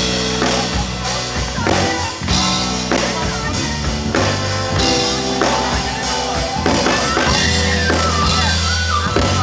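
Loud music with a steady drum beat and sustained bass notes, heard through a concert sound system; a wavering melodic line comes in over it near the end.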